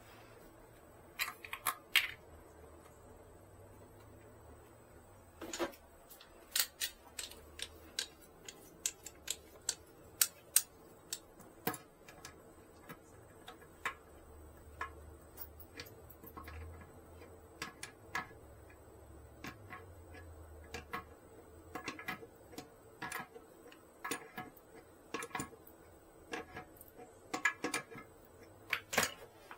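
Irregular clicks and knocks of hands handling parts and tools during toilet tank work, some sharper knocks near the start and end.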